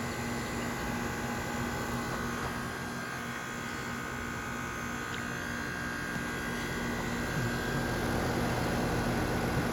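A brand-new 2-ton Bryant heat pump running in cooling mode: a steady fan rush with a steady hum and faint tones under it, growing slightly louder in the last few seconds.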